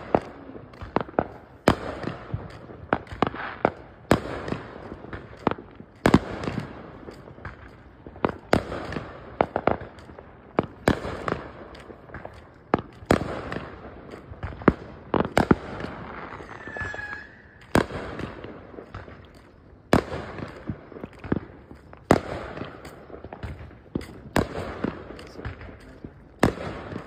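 Aerial fireworks going off: a long run of sharp bangs in quick, irregular succession, each trailing off in a short rolling echo.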